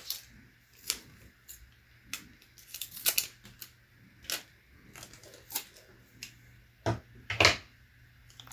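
Scattered short clicks and rustles of hands peeling and handling a strip of tape on the laptop's screen parts, with two louder clicks near the end.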